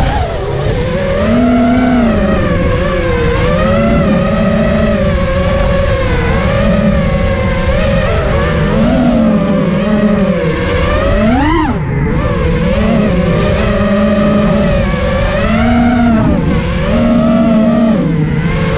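FPV racing quadcopter's brushless motors and propellers whining as heard from the onboard camera, the pitch rising and falling constantly with the throttle, with a sharp throttle punch and drop a little past the middle. A rushing noise of prop wash and wind runs underneath.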